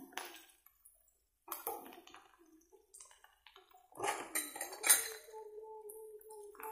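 Utensils knocking and clinking against a wok: a glass bowl and a metal spatula, a few scattered clinks and then a busier run of clinks about four seconds in. Near the end a steady pitched hum or whine starts.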